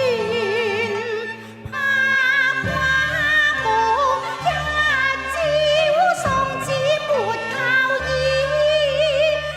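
Cantonese opera music: a melody with heavy, wavering vibrato over sustained accompaniment, dipping briefly about a second and a half in.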